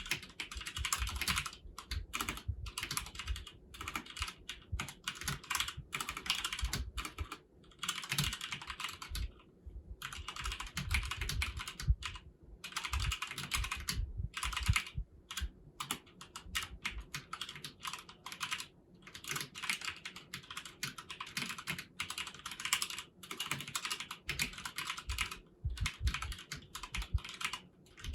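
Steady fast typing on a Filco Majestouch Convertible 2 mechanical keyboard with stock keycaps and foam added inside, with dense runs of keystrokes broken by a few brief pauses.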